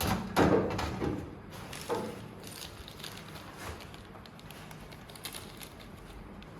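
Metal DVR rack parts being handled during assembly: a cluster of knocks and scrapes in the first two seconds, then quieter small clicks and rattles.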